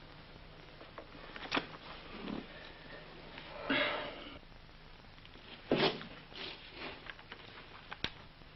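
A few short rustles and breathy sniffs over a faint steady hum, with a light click near the end.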